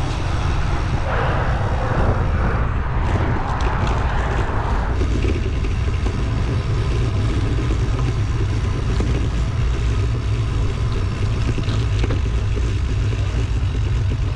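Steady low rumble of wind buffeting the microphone of a bicycle-mounted camera while riding, with a brighter hiss added from about one to five seconds in.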